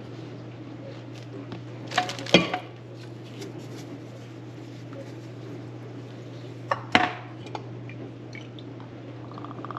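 Kitchenware clattering: two brief clusters of sharp knocks, about two and seven seconds in, over a steady low hum.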